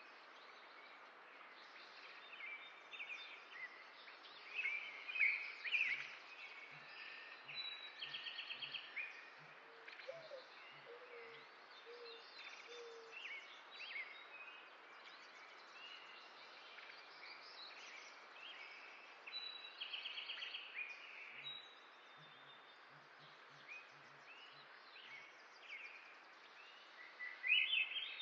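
Several wild birds singing and calling, with many short chirps and warbles and a rapid trill twice, over a steady outdoor hiss.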